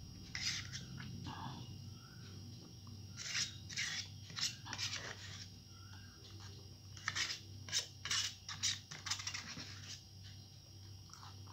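Metal spoon scraping and clinking inside a small plastic cup of sweet yogurt, in short irregular scrapes, mixed with eating sounds, over a steady low hum.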